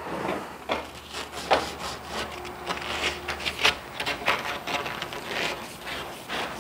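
Sandpaper rubbing on the cut end of a 25 mm PVC water pipe in short, uneven scraping strokes, which roughen and deburr the end ready for solvent-cement gluing.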